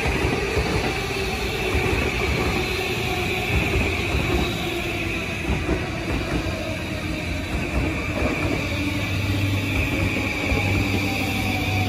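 JR E235-1000 series electric train rolling slowly past: steady running noise of wheels and traction equipment, with a whine that drifts slightly lower and a low hum that comes in about nine seconds in.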